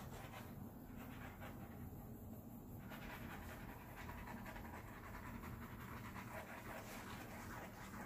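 Small handheld butane torch hissing quietly as it is passed over wet poured acrylic paint to pop air bubbles. The hiss thins out for about two seconds near the start, then returns.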